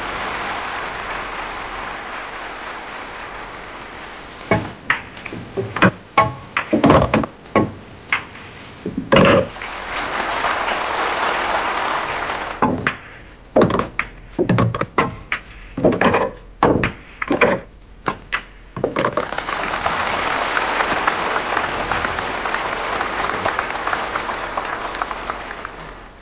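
Audience applauding, then a long run of sharp clicks from a nine-ball game: the cue striking the ball and balls clacking together, with pauses between shots. The applause rises again near the end.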